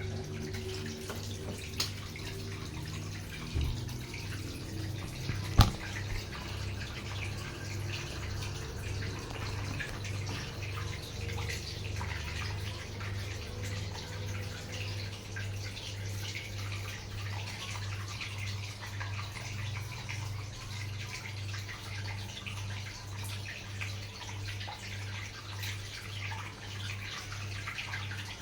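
Sharp washing machine filling with water: water runs and splashes into the drum over a steady low hum that pulses slightly. One sharp click comes about five and a half seconds in.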